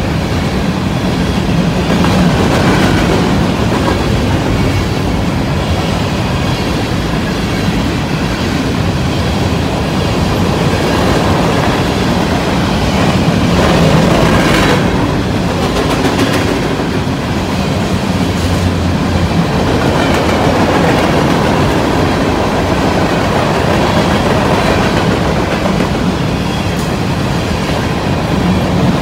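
A BNSF freight train of covered grain hopper cars rolling past at speed: a steady, loud rumble of steel wheels on the rails.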